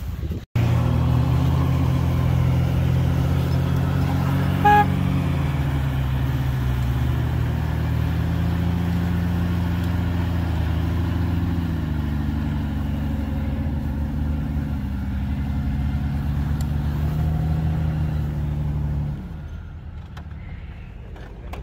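Jeep engine running steadily at low speed while one Jeep pulls another out of the snow on a recovery strap, with a short horn toot about five seconds in. The engine sound drops away near the end.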